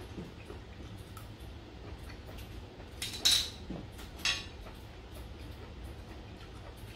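Eating utensils clinking against a stainless steel bowl and plate: chopsticks laid down, then a spoon taken up. There are two sharp clinks about a second apart near the middle, the first the louder.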